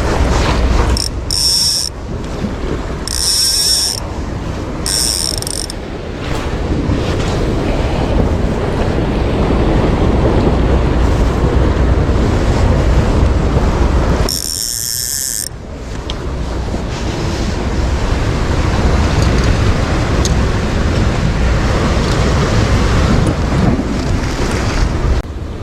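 Wind buffeting the microphone over sea waves, a loud steady rush. Four brief high-pitched sounds cut through it, three in the first six seconds and one about fourteen seconds in.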